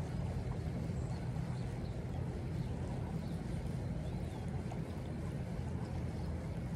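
Steady rush of a flowing creek, a low, even rumble with a lighter hiss above it.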